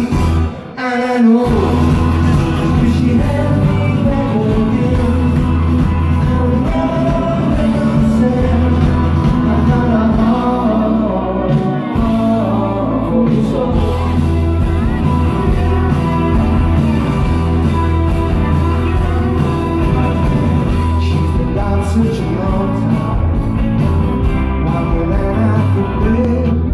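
Rock band playing live: singing over guitars and drums, with a short drop in the sound about a second in.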